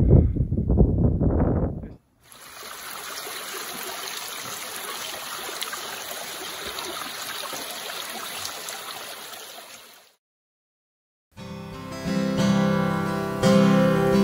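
A small trickle of water running over rocks, a steady hiss lasting about eight seconds. It is framed by music: the end of a song in the first two seconds and acoustic guitar coming in near the end.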